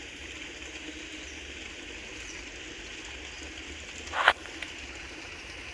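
Steady outdoor hiss from a weedy canal, with one short loud noise about four seconds in.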